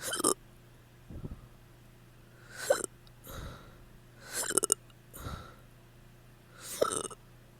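A person hiccuping repeatedly, drunk hiccups brought on by drinking. Four sharp hiccups come about two seconds apart, each followed by a softer catch of breath.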